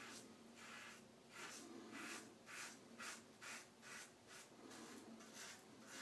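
Short scraping strokes of an Apollo slant bar safety razor cutting through lathered stubble on the neck, faint, about two strokes a second.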